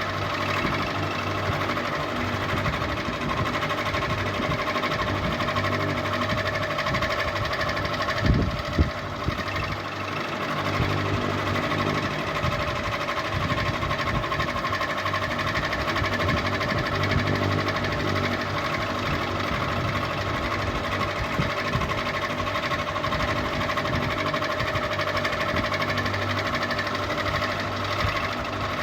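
Ceiling fan running steadily with a fast, even mechanical clatter and a steady whine. About eight seconds in there are two sharp knocks.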